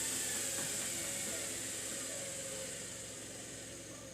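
Samsung front-loading washing machine running, a steady mechanical sound that grows slowly quieter.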